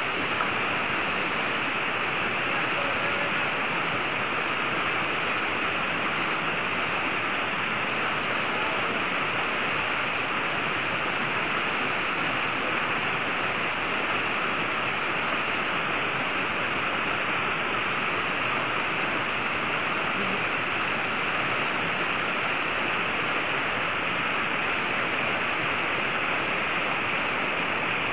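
Shallow rocky stream rushing steadily over a small cascade.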